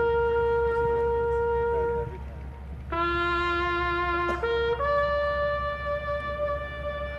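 A brass horn playing slow, long-held notes without vibrato. One note is held for about two seconds, and after a short pause a lower note, a brief middle note, and a higher note held to the end follow, in the stepped pitches of a bugle call.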